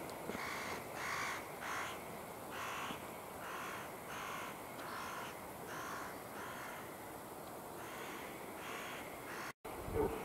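A steady series of short, harsh animal calls, about two a second, which break off briefly near the end.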